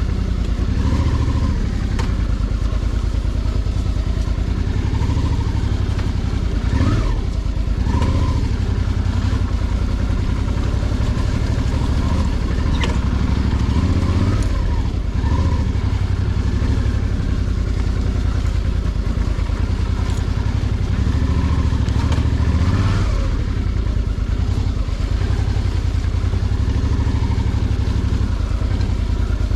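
Suzuki V-Strom 650 (DL650) motorcycle's V-twin engine running continuously under way off-road. The revs rise and fall a few times, with occasional clatter.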